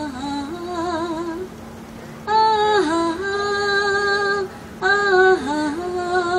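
A woman singing a slow melody, without clear words, in three phrases of long held notes with vibrato, over a steady low hum.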